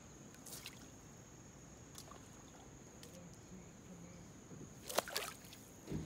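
Steady high insect chirring with a few short water splashes and sloshes, the loudest about five seconds in and another just before the end.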